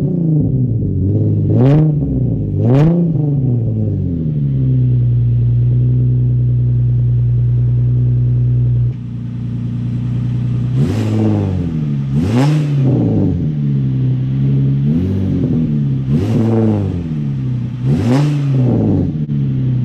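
Nissan 350Z's 3.5-litre V6 on a straight-through decatted exhaust, blipped three times, settling to a steady idle, then blipped about five more times. About nine seconds in, the deep bassy drone of the idle drops away suddenly, the way it does when the exhaust control valve is pulled shut.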